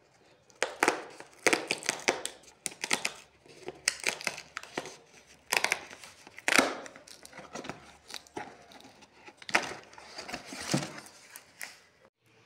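Cardboard shipping box being opened by hand: its adhesive tear strip ripped off and the flaps and paper inside handled, giving an irregular run of tearing and crinkling rustles.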